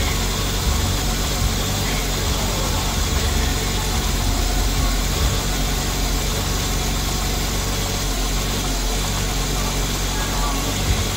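1992 Subaru SVX's 3.3-litre flat-six engine running steadily in drive, with the car up on stands and its wheels spinning.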